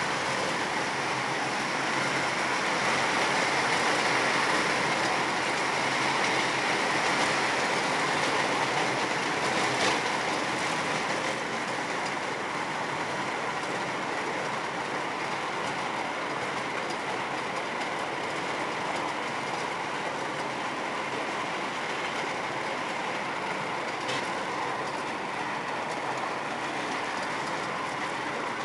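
Miniature ride-on park train running along its track, heard from one of its cars: a steady rolling rumble and clatter of the wheels on the rails, with a couple of sharper clicks.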